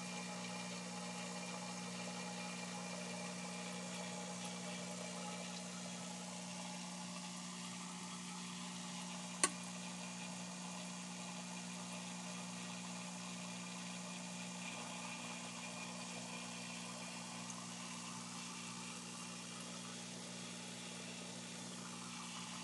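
A steady low hum with a faint hiss over it, unchanging throughout, broken once by a single sharp click about nine seconds in.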